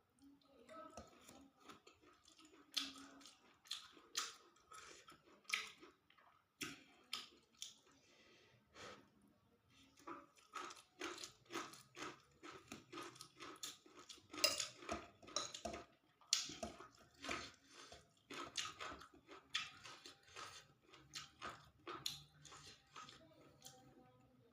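A person chewing and eating fried rice vermicelli with tofu: a run of quick irregular mouth clicks and smacks, sparse at first and coming thick and fast from about ten seconds in.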